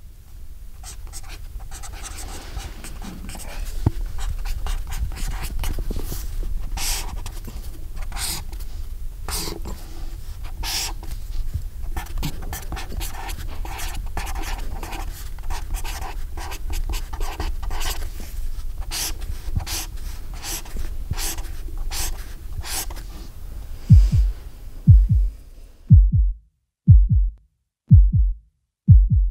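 A felt-tip marker squeaks and scratches across paper in quick strokes while lettering by hand, over a steady deep hum. Near the end the writing stops and deep, regular thumps begin, about one a second, like a heartbeat.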